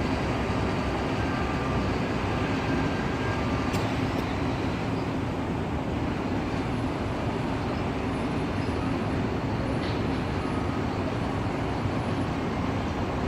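Airbus A380's four jet engines running with a steady, continuous rumble, with a faint high whine.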